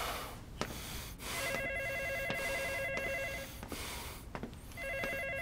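Phone ringing with an electronic trilling ring tone, in rings of about two seconds separated by short pauses: one full ring, then the next ring starts near the end.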